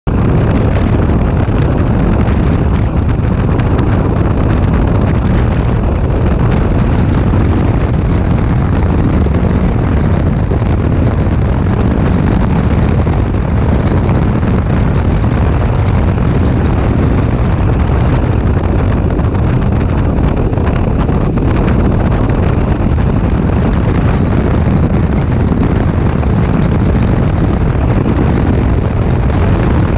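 Heavy wind noise buffeting the microphone at road speed on a Kawasaki Versys 650 motorcycle, with the parallel-twin engine's steady drone underneath.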